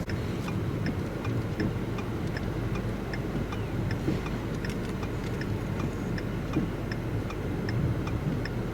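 A car's turn-signal or hazard flasher clicking steadily, a little over once a second, inside the cab over the low rumble of the vehicle.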